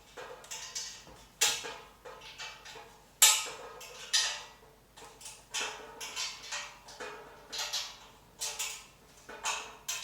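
Irregular clinks and knocks of metal umbrella parts and hardware being handled and fitted, about one or two a second, each ringing briefly. The loudest knock comes about three seconds in.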